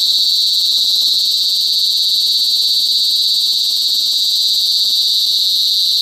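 Cicada singing: one loud, continuous high-pitched buzz that holds steady at a single pitch.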